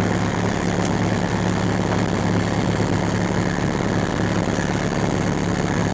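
Cessna 172's piston engine and propeller running at low taxi power after landing, a steady drone heard inside the cockpit.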